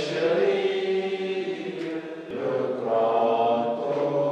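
A group of people singing together in long, held notes.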